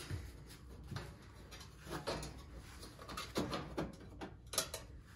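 Sheet-metal back panel of a stove being positioned by hand, giving several faint knocks and light scrapes, more of them in the second half.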